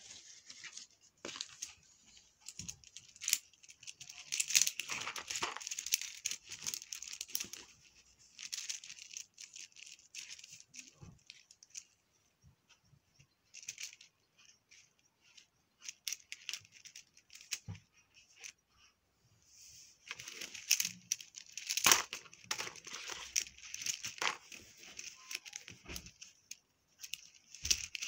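Cardboard and paper packaging being torn and crinkled open by hand, in two busy stretches. Sharp clicks of hard plastic toy pieces being handled and twisted are scattered between them.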